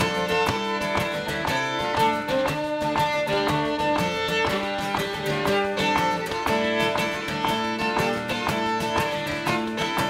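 Instrumental break of a Métis/Québécois traditional tune: a fiddle plays the melody over a steadily strummed acoustic guitar and the held drone of a shruti box.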